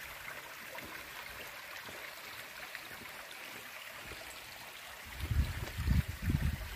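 Small, shallow woodland stream trickling over mossy rocks, a steady running-water sound. A few low thumps come in near the end.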